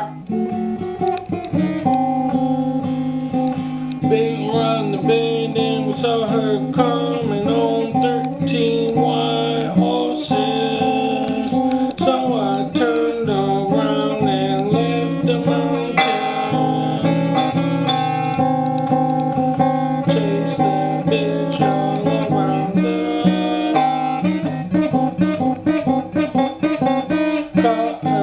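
Acoustic guitar played freestyle, a mix of strummed chords and picked notes in a continuous improvised riff.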